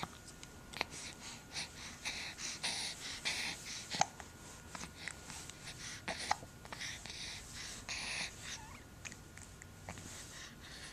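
Young child's breathing in noisy hissing spells, broken by a few short sharp hiccups, the loudest about four seconds in.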